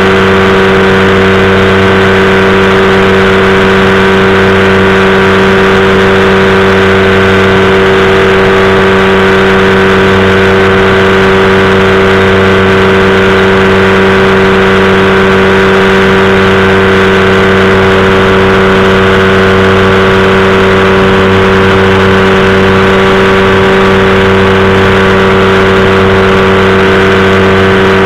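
Powered parachute's engine and propeller running loud and steady at constant throttle, with no change in pitch.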